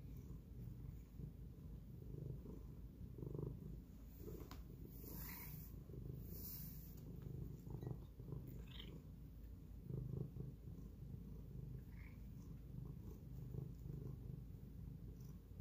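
Domestic cat purring steadily while being brushed, with a couple of brief swishes of the brush through its fur about five and six and a half seconds in.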